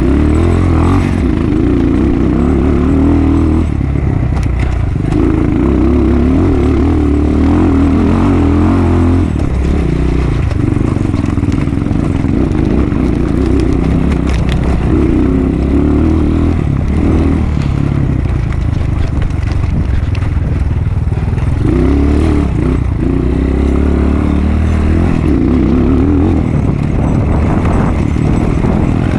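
Motocross bike engine running hard, its note swelling and dropping off every few seconds as the throttle is opened and closed.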